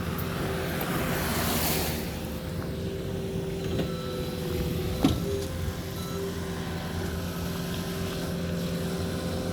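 Car engine running steadily, heard from inside the cabin, as a low hum. A rushing noise swells and fades between one and two seconds in, and there is a single sharp click about five seconds in.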